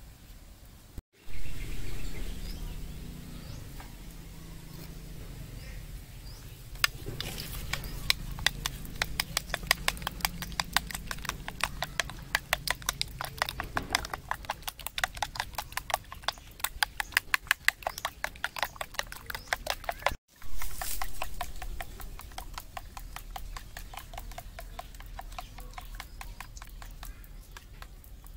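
A metal spoon beating eggs in a porcelain bowl. It clicks against the side of the bowl in a quick, even rhythm of several strikes a second that starts several seconds in and goes on more faintly near the end.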